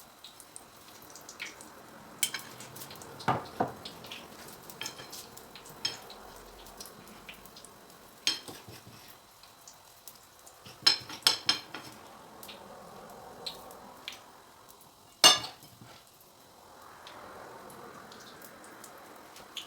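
Battered hot dogs frying in oil in a pan: a faint sizzle under several sharp clinks and knocks of a utensil against the pan, the loudest about fifteen seconds in.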